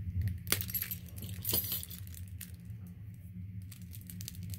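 Plastic wrapping on a card pack being picked at and pulled open by hand: scattered small clicks and crinkles, with two louder rustles about half a second and a second and a half in. A low steady hum runs underneath.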